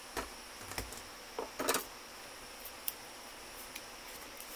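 A few light clicks and taps of spice containers being handled, mostly in the first two seconds with one more near three seconds, over faint room tone.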